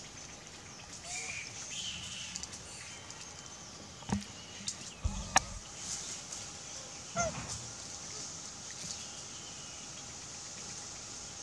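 A few short animal calls, one about a second in and another past the middle. Three sharp clicks fall between them, over a steady high hiss.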